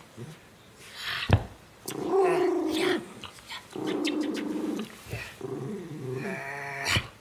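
Miniature schnauzer growling in several drawn-out bouts, possessive of his toy as a hand reaches for it. A sharp click a little over a second in is the loudest single sound.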